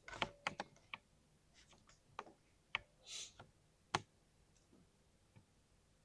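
Keystrokes on a mechanical keyboard with silver switches, a thocky, poppy typing sound. The clicks come irregularly, thickest in the first second and sparse after about four seconds.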